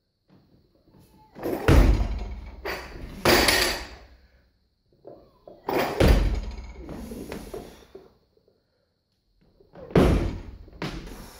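A loaded Olympic barbell and the lifter's feet during a clean and jerk: a series of heavy thuds and metallic clanks as the bar is caught and driven overhead and the feet stamp into the split. The loudest impacts come about two seconds in, around six seconds and near the end, with plate clatter between.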